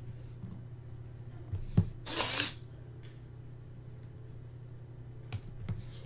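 Micro servo motor whirring for about half a second as it drives a slide-bolt door lock through a paper-clip linkage, set off by clicks of TV remote buttons. A steady low hum runs underneath.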